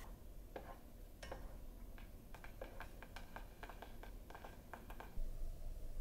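Light, irregular clicks and taps of kitchen food preparation, about four a second for some four seconds. Near the end they give way to a steady low rushing noise.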